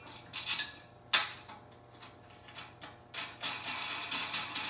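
Metal tripod accessory tray and leg brace clinking against the tripod legs and hardware as it is fitted. There are two sharp clanks about half a second and a second in, then a longer run of rattling near the end.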